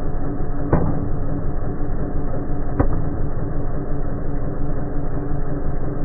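Road roller engine running steadily as its steel drum rolls slowly onto a drinks can and crushes it. Two short sharp clicks sound over the drone, one just under a second in and one near three seconds in.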